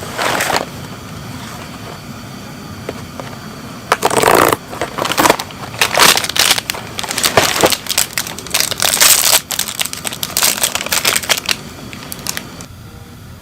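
Irregular crunching and crinkling handling noises in bursts, starting about four seconds in and stopping shortly before the end, with one short burst at the very start.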